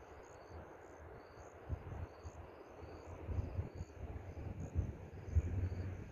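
Crickets chirping: short high-pitched chirps repeating steadily, about twice a second. Under them is a gusty low rumble of wind on the microphone.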